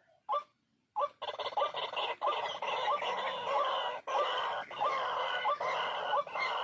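White-breasted waterhen (ruak-ruak) calling: a few short notes, a break of about a second, then a long run of repeated croaking call notes.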